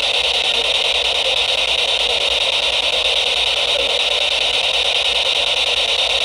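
SB-7 spirit box sweeping rapidly through radio stations, giving a steady, loud hiss of radio static with a fast, choppy flutter.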